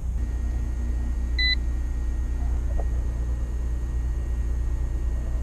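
Harbor Freight AMES CM610A clamp meter giving one short electronic beep about a second and a half in, over a steady low hum.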